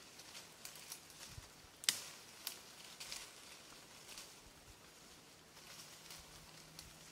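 Leaves rustling and branches creaking and cracking as a person climbs in a tree and pulls at the twigs, with a few sharp cracks, the loudest about two seconds in and another half a second later.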